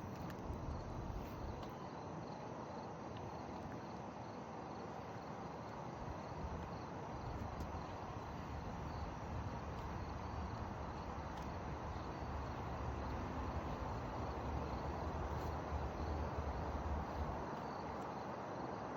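Outdoor ambience: insects chirping steadily and faintly over a low rumble.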